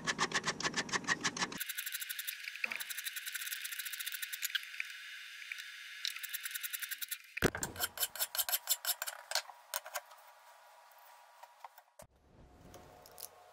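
A hand file rasping across steel hex stock clamped in a vise, stroke after stroke in quick runs, as the corners are filed down toward a round tenon. A few faint clicks near the end.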